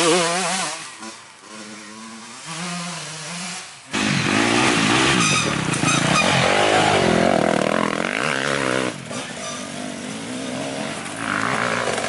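Dirt bike engines revving as several off-road motorcycles ride past one after another, the pitch rising and falling with the throttle. The engine sound turns suddenly louder about four seconds in.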